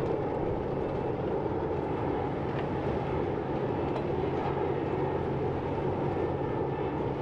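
Boat engine running steadily at low speed as the boat manoeuvres toward the dock, a low even hum over a wash of background noise.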